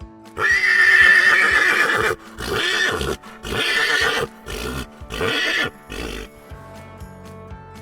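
Horse stallion whinnying: one long, loud, high call about half a second in, followed by a run of five shorter, pulsing calls that die away about six seconds in. Background music plays underneath.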